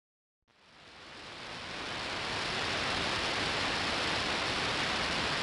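Radio static hiss from an SDRplay RSPdx receiver tuned on the long wave band, with no station or tone heard. It fades in over about two seconds, then holds steady.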